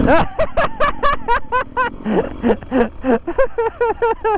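High-pitched laughter: a quick run of short 'ha' sounds, about five a second, with a second, lower laugh joining in for the second half.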